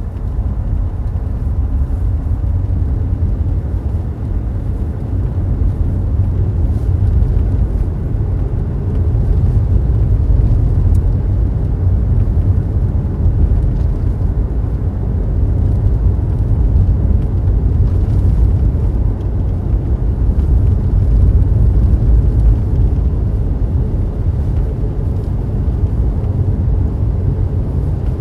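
Battery electric car heard from inside the cabin while driving on the street: a steady low rumble of road and running noise.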